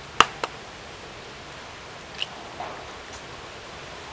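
A small chicken egg being cracked: two sharp taps of the shell a quarter-second apart near the start, then a fainter click about two seconds in.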